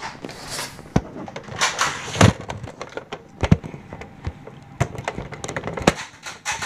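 Plastic foam-dart toy blaster being handled and fired: a string of irregular sharp clicks and knocks, the loudest about two seconds in.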